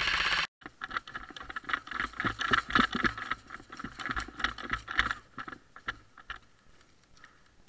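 A rapid full-auto burst from an airsoft electric rifle, cut off abruptly in the first half second. Then comes an irregular run of clicks, knocks and low thumps: footsteps and gear rattling as players move in a group, fading out near the end.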